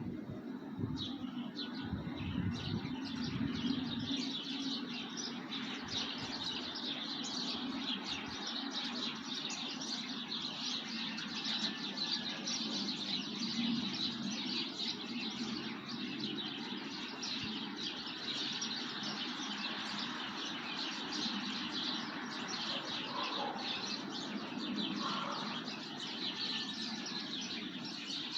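A dense chorus of many small birds chirping rapidly and without a break, over a steady low rumble. Low thumps of wind on the microphone come in the first few seconds.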